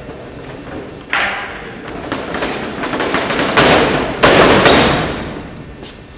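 A line of fencers lunging in unison, their front feet slapping down on the floor in a ragged series of thumps. The loudest come about three and a half and four seconds in, ringing out in the echo of a large hall.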